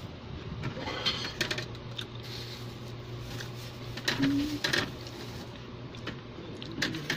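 Scattered knocks, clicks and paper rustling as things are handled close to the microphone, over a low steady hum that comes in about a second in.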